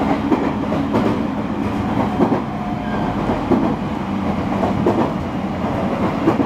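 JR East 209 series 2100 subseries electric train running at speed, heard from inside the car: a steady rumble of wheels and motors with occasional clicks of the wheels over rail joints.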